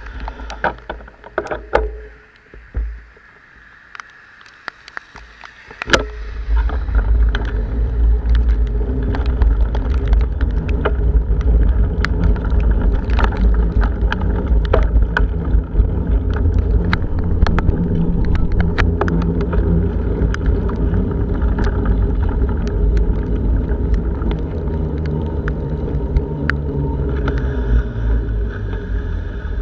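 Strong wind buffeting a bicycle-mounted camera's microphone, which sets in as a loud, steady low rumble about six seconds in. Many sharp ticks of rain and hail strike the camera throughout.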